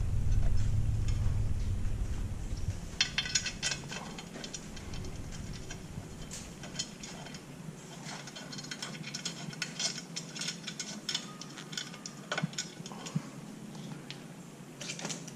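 Small metal clicks and clinks as a clamp bracket and bolt are handled and fitted onto a motorcycle crash bar, with a low rumble during the first few seconds.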